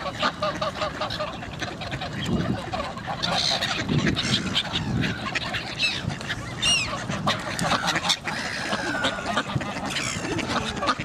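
A crowd of geese and ducks calling together, with repeated honks and quacks overlapping one another.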